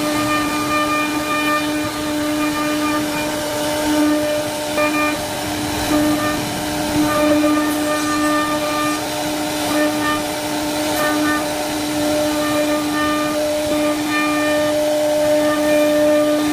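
CNC router spindle running at a steady high whine as its bit carves a relief pattern into a wooden door panel, with the hiss of the cutting over it.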